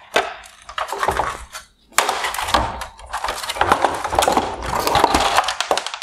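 Plastic lens and bezel of a 2020 Maserati Levante LED headlight being lifted off the housing and set down on a wooden workbench: a run of knocks, rattles and scrapes of hard plastic against plastic and wood, with a sudden loud knock about two seconds in.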